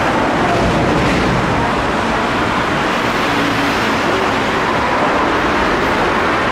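Midosuji Line metro train moving along a station platform: a steady, loud rumble of wheels on rail and running gear, with faint motor tones about halfway through.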